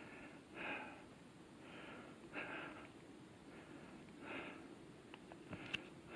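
A hiker breathing hard from the exertion of a steep mountain climb, with several breaths in and out about every second or two. There are a couple of light knocks near the end.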